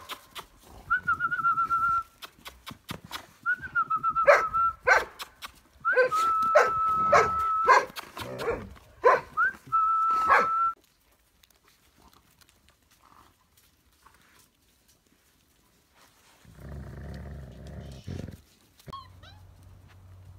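Briard dogs, a mother and her litter of puppies, whining and yipping: long, steady high-pitched whines in four bouts, broken by sharp short yips, over the first half. A short low rumble comes near the end.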